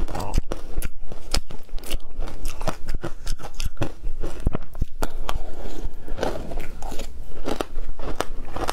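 Shaved ice with passion fruit being bitten and chewed, a quick, irregular run of sharp crunches.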